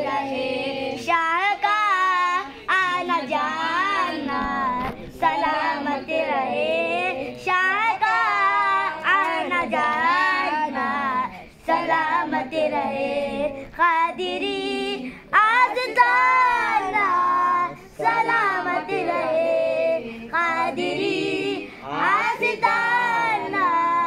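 A child singing a devotional manqabat solo, the high voice ornamented with long, wavering melismatic runs, breaking off briefly for breath every few seconds.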